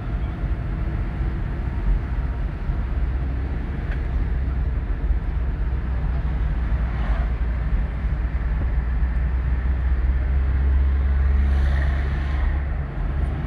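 Steady low rumble of vehicle engines and road noise, heard from inside a car as military pickup trucks drive past. The rumble swells around eleven to twelve seconds in.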